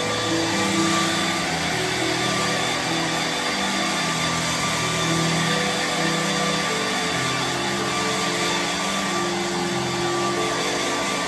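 Handheld hair dryer running steadily as it blows on a small dog's fur, a continuous rushing of air.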